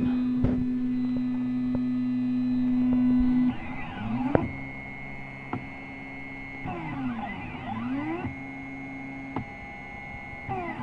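SeeMeCNC Orion delta 3D printer running its automatic bed calibration. A steady low hum stops about three and a half seconds in. Then the stepper motors whine, the pitch rising and falling in pairs as the carriages speed up and slow down for each probing move, with a few sharp ticks as the nozzle taps the bed.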